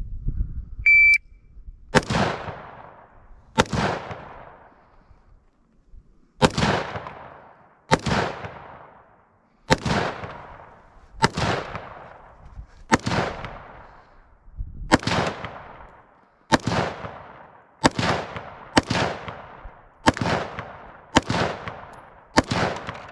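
A shot timer beeps once about a second in, then about fourteen single gunshots follow, one every one to two seconds, each with a fading echo, as the shooter works through a row of pins in a timed run.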